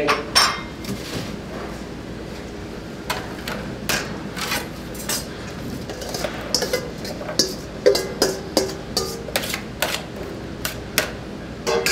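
Large metal spoon knocking and scraping diced butternut squash and onion out of a stainless steel mixing bowl onto a metal sheet pan: a run of irregular clinks and clicks of metal on metal.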